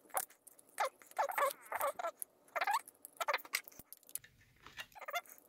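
A quick series of short, squeaky chirps and small clicks, the sound of plastic monitor parts rubbing and creaking as they are prised and wiggled apart by hand.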